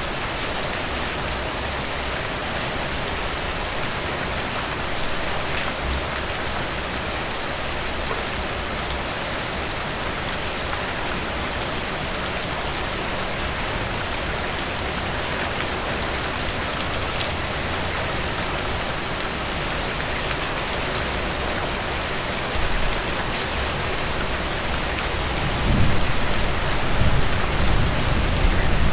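Heavy rain falling steadily, a dense hiss of drops on surfaces. A low rumble swells in near the end.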